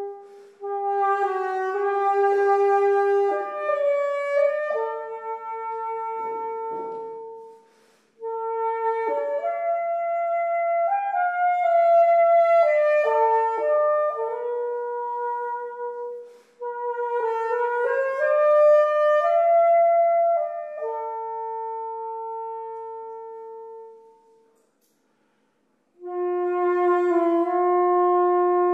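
Solo tárogató, the Hungarian wooden single-reed woodwind, playing a slow melody of long held notes joined by stepwise slurs. The melody comes in phrases with brief breaths between them and a silent pause of about a second and a half near the end before the next phrase begins.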